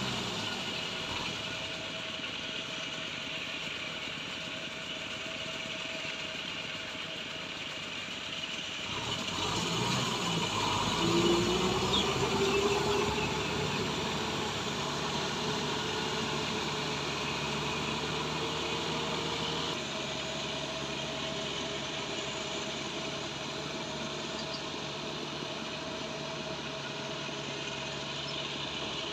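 Kubota M6040SU tractor's diesel engine running steadily under load while it drives a rotavator through mud and water. About ten seconds in it grows louder, with a rising whine, and then settles back to a steady run.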